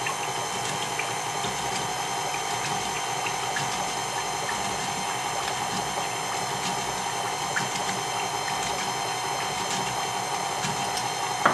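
KitchenAid Classic stand mixer running steadily, its motor and gears turning the flat beater through a liquid mix of oil and sugar, with a few faint ticks.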